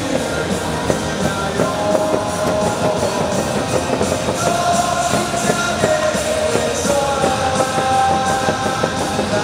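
Loud rock cheer music over a baseball stadium's sound system, with a crowd of fans singing along to a steady beat.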